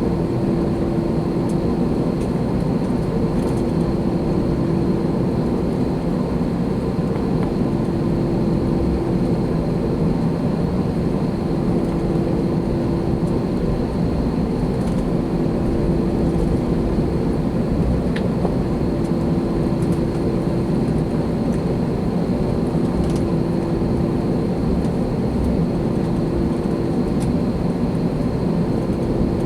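Airbus A321 airliner cabin noise with the engines at idle before takeoff: a steady rumble with a constant hum.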